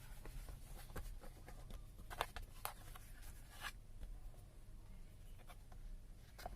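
Faint scattered clicks and light scraping from small objects being handled, with a low background hum.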